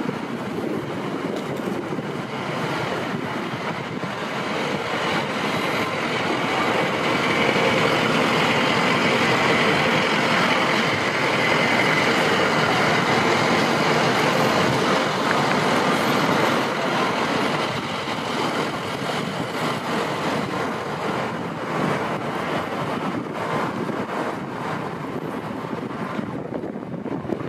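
City street traffic noise: a steady mix of vehicle engines and tyres, louder for several seconds in the middle as a stopped box truck's engine runs close by.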